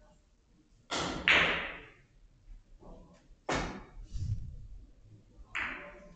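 Carom billiard cue stroke and ball impacts: a sharp double clack about a second in as the cue strikes the cue ball, then two more single clacks of the ball against cushion or ball about three and a half and five and a half seconds in.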